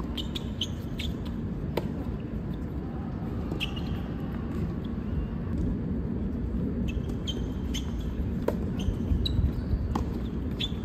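Sports shoes squeaking on a court floor, with scattered sharp knocks, over a steady low hall rumble.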